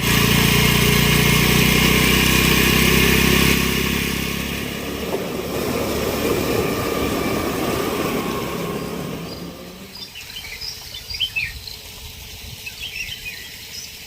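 A loud, steady rushing noise with a low hum for the first few seconds, fading away by about ten seconds in. After that, quieter outdoor ambience with birds chirping.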